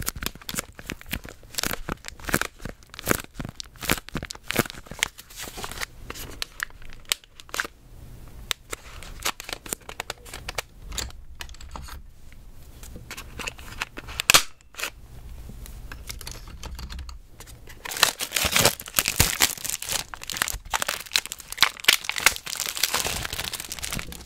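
Plastic Nanaco pudding cups and their clear plastic tray handled close to the microphone: a busy run of sharp plastic clicks and crinkles, with one louder knock about halfway. The crinkling grows denser for the last few seconds.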